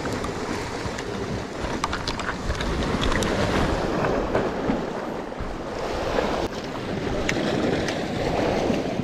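Sea waves washing against a rocky shore, surging and easing, with wind buffeting the microphone and a few short ticks.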